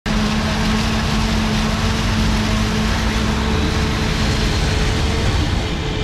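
Forage harvester running under load while chopping corn for silage: a loud, steady drone of engine and machinery with constant pitched hums, one of which stops a little past halfway.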